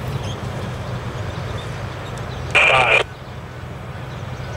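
Diesel engine of a tractor-drawn Seagrave fire department ladder truck running steadily as it drives off. About two and a half seconds in, a short, loud, high blip of about half a second cuts through the engine sound.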